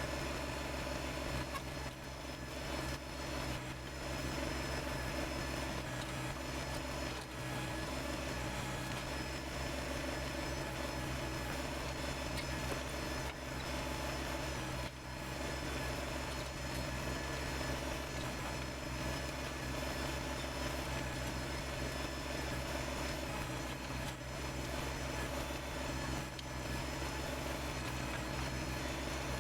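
Kubota BX sub-compact tractor's diesel engine running steadily, a constant low drone with no change in speed.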